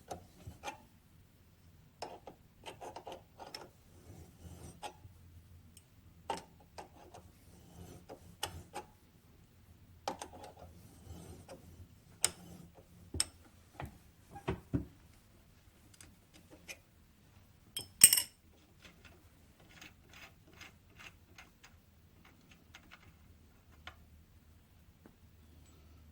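Small metal parts and hand tools being handled on a workbench: scattered clicks, clinks and light knocks with some rubbing, the sharpest click about 18 seconds in.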